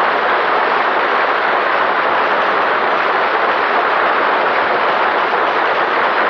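Studio audience applauding, a steady, even clapping without a break, heard through an old radio broadcast recording.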